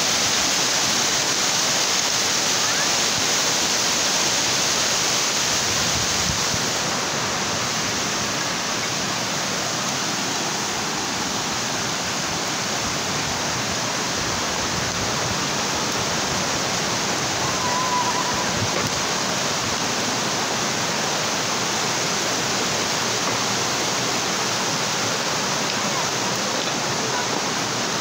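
Creek water rushing steadily out of a large corrugated-metal culvert and over rocks, a little louder for the first six seconds or so.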